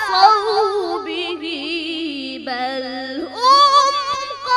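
A boy's voice reciting the Quran in melodic tajwid style, drawing out long wavering, ornamented notes. The pitch sinks slowly over the first two and a half seconds, then climbs back up and grows louder about three and a half seconds in.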